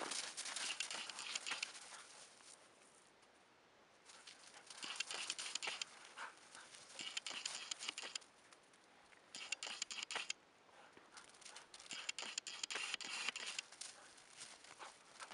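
Crunching steps in packed snow, coming in spells of a second or two with quieter gaps between.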